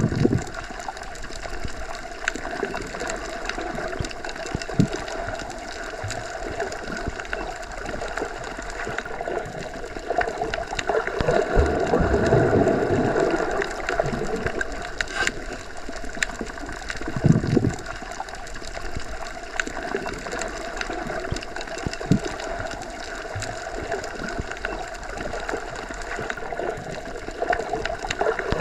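Underwater ambience: a continuous water hiss and murmur with scattered small clicks and a few low thumps, swelling louder about twelve seconds in.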